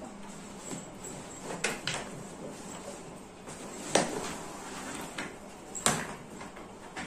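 Grey fabric duffle travel bags being handled and moved about on a table: a few sharp knocks, the loudest about four and six seconds in, with handling noise between them.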